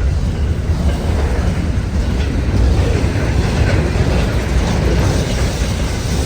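Train rolling past, a loud steady rumble.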